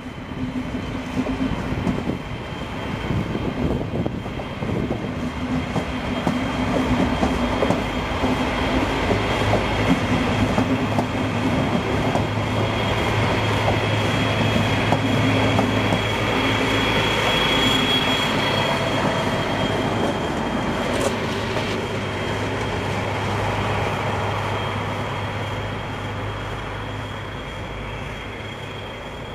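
Regional train of n-Wagen coaches rolling past, with a DB class 218 diesel-hydraulic locomotive whose engine drone swells as it comes near, then fades. Wheels clatter over rail joints, and a thin high wheel squeal rises toward the middle.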